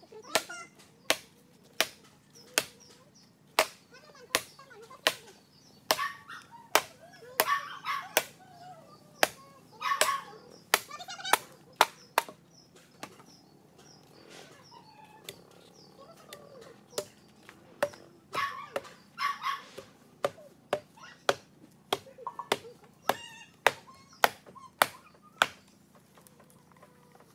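Machete chopping bamboo: sharp strikes about once or twice a second, with a pause of a few seconds around the middle.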